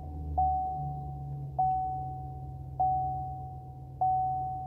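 A warning chime in the cab of a 2016 Chevrolet Silverado 2500 sounds four times, about once every second and a bit, each note dying away; it is the truck's warning that the hood is open. Under it the 6.0-liter V8 gas engine idles steadily just after start-up, heard from inside the cab.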